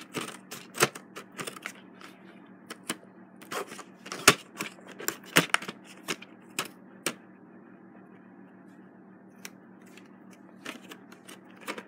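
Stiff plastic blister packaging of a toy being cut with scissors and pried apart: irregular sharp crackles and clicks, busiest in the first half and sparser near the end.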